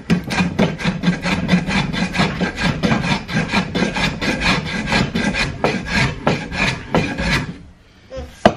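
Old wooden scrub plane shaving the face of a sugar maple block, in quick short strokes at about four a second, flattening the surface. The strokes stop about a second before the end, followed by a single sharp knock.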